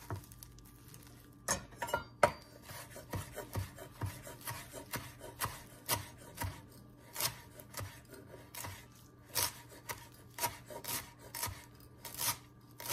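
Chef's knife chopping a bunch of fresh cilantro on a wooden cutting board: a run of quick, uneven knocks of the blade on the board, about two a second, starting about a second and a half in.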